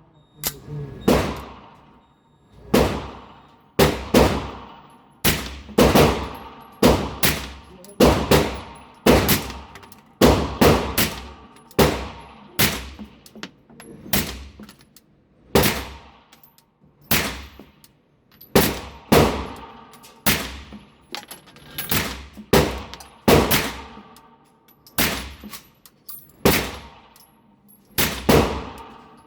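Sig P226 TACOPS pistol fired through a Rugged Obsidian 45 suppressor: a steady string of suppressed shots, about one a second, some in quick pairs, each a sharp crack with a short ringing tail.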